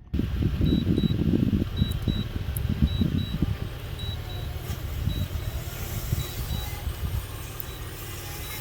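Toyota 4Runner TRD Off-Road on a rock trail: a low rumbling vehicle noise that is loudest in the first three seconds, with a faint high double beep repeating about once a second.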